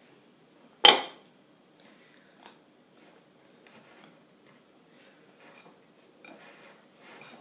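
Wire whisk folding flour into beaten egg whites in a glass mixing bowl: one sharp clink about a second in, then quiet, soft swishing and scraping strokes with the odd light click.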